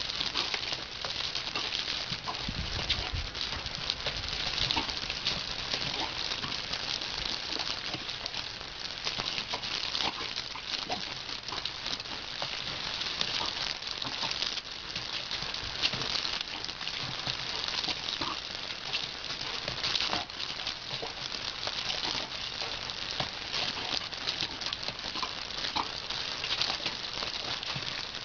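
Garden-hose water spraying and spattering on stone paving in a steady hiss full of small splashes, with a dog biting and lapping at the jet.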